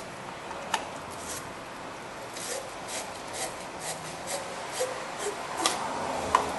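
Wire battery-post cleaning brush twisted on a corroded battery terminal post: a run of short scraping rasps, with a sharp click near the end. The scraping is the corrosion being cleaned off the post.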